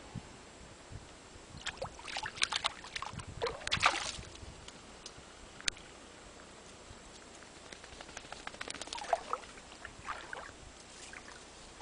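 Shallow lake water splashing and sloshing in two short bouts, one about two to four seconds in and another near nine to ten seconds, with quieter stretches between.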